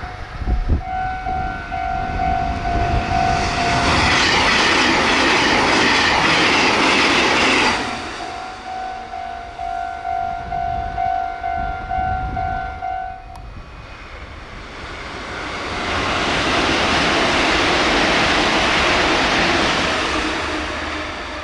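Japanese level-crossing warning bell ringing in a steady pulsing rhythm while a Meitetsu 1000/1200 series limited express passes at about 116 km/h, loud for about four seconds before the bell rings on alone. After a cut, a JR Central 313 series special rapid passes at about 117 km/h, swelling and fading over about five seconds.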